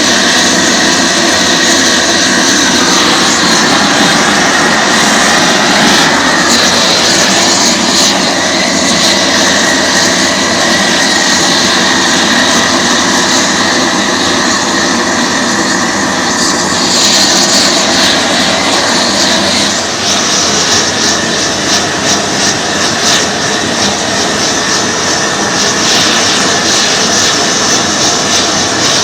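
Gas torch burning at full flame, a loud steady rushing roar, as a copper model-locomotive boiler is heated for silver soldering.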